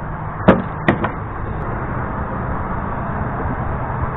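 Two sharp knocks about half a second apart near the start, over a steady rushing outdoor background.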